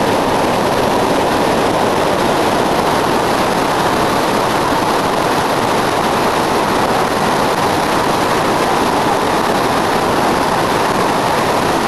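River rapids: whitewater rushing over rocks in a loud, steady roar of water.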